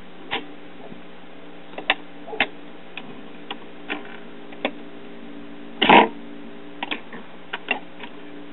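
1965 Admiral record changer running through its change cycle: scattered mechanical clicks and clunks as the record drops and the tone arm swings over to set down, with a steady hum underneath and one louder thump about six seconds in. This is the cycle that sets the tone arm down too far in.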